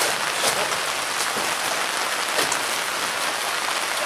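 Steady heavy rain falling on a canvas tent, heard from inside as an even hiss, with a few single louder drop ticks.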